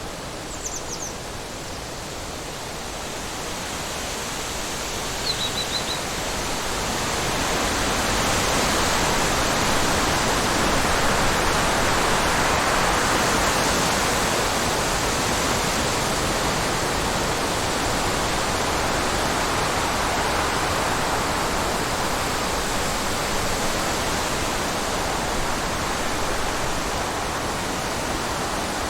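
Wind blowing as a steady breeze that swells over the first several seconds and then holds even, with two faint bird chirps about one and five seconds in.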